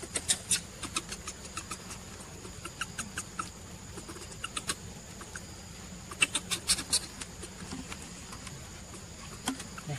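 Quick clusters of short clicks and rustles as a baby macaque scrambles with, chews and handles a striped cloth. A faint steady high tone runs underneath.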